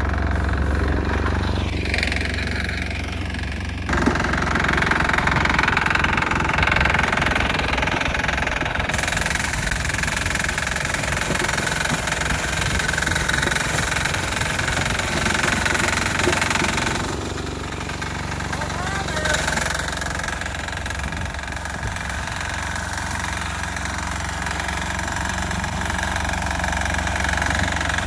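Small garden tractor's 6 hp single-cylinder air-cooled diesel engine running steadily while working. It gets louder about four seconds in and quieter again after about seventeen seconds.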